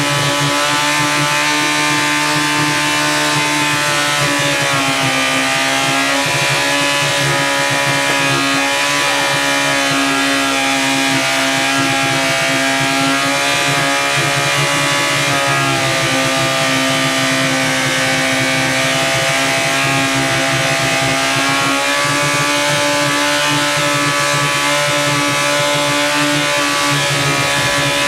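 Yamaha R1 motorcycle inline-four engine running flat out at high, steady revs, with a few brief dips in pitch, as it is run to destruction.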